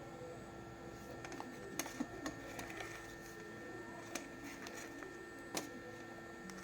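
Scattered light clicks and taps of small parts and tools being handled during repair work, over a steady faint electrical hum.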